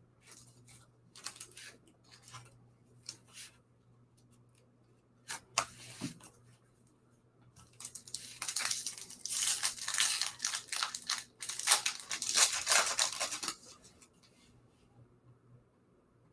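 Foil trading-card pack wrapper being torn open and crinkled: a dense run of tearing and crackling starting about eight seconds in and lasting some five seconds. Before it, a few light clicks and rustles of cards being handled.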